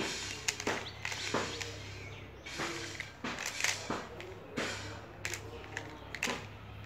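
Square-1 puzzle being turned and sliced by hand: sharp plastic clicks and clacks as the layers snap into place, coming irregularly a few times a second.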